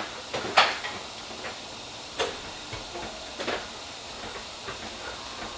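Several sharp knocks and clicks at irregular spacing, the loudest about half a second in, over a steady background hiss.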